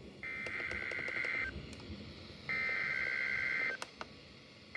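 Emergency Alert System SAME header: bursts of rapid two-tone digital data, each a little over a second long with about a second's pause between, two in full and a third starting near the end. It is the coded header that opens a new alert.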